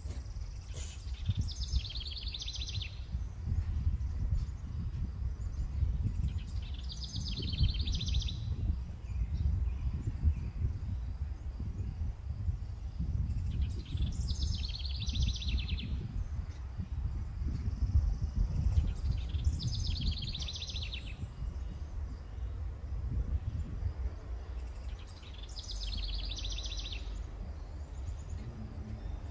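A songbird sings the same short trilled phrase five times, about every six seconds, over a low, uneven rumble.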